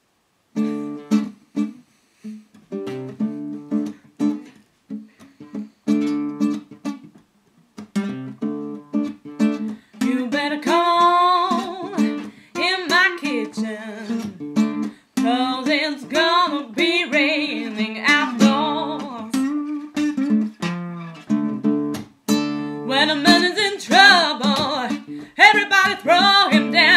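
Acoustic guitar picking a slow blues intro in separate plucked notes, joined about ten seconds in by a voice singing long, wavering lines over the guitar.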